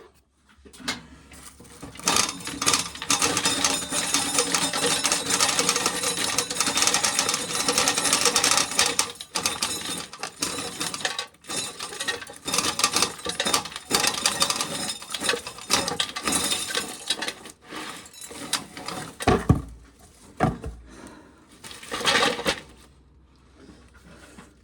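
Dried corn being shelled off the cob, the hard kernels rattling and clicking in a dense run, then a few scattered clicks and sharp knocks near the end.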